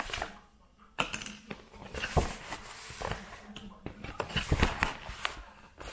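Paper and plastic packaging of a screen protector kit being handled: irregular rustling and crinkling, with a few sharp taps as small items such as an alcohol prep pad sachet are set down on the tablet.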